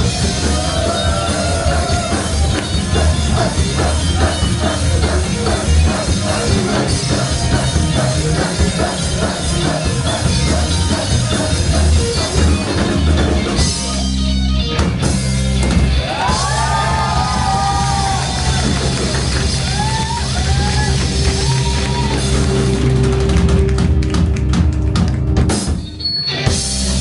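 Rock band playing: drum kit, electric guitars and bass with a singer's vocal line. The music thins out briefly about halfway through and stops for a moment near the end.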